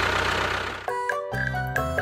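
An engine sound running with a steady low hum and hiss cuts off suddenly about a second in. Background music with simple held notes takes over.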